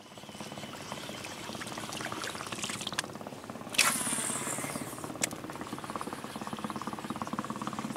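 Water splashing and trickling along the hull of a moving boat, over a steady low running motor. A brief sharp hiss that falls in pitch cuts in about four seconds in.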